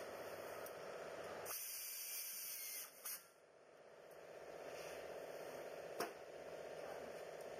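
Short hiss of compressed air, about a second and a half long, from a pneumatic tool on an air hose, over a faint steady shop hum; a single sharp click near the end.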